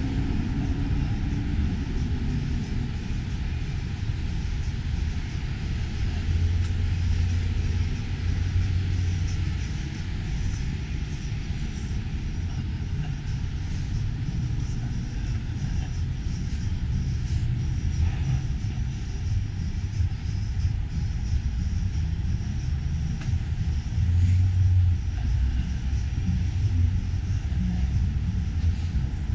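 Steady low rumble of city street noise, swelling briefly about a quarter of the way in and again near the end.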